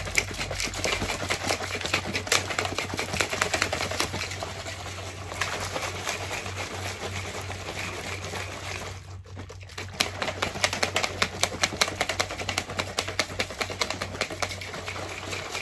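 Two plastic shaker cups of energy drink being shaken hard, one in each hand, a fast, dense rattling of liquid and contents against the plastic to mix the powder in. The shaking stops briefly about nine seconds in, then starts again.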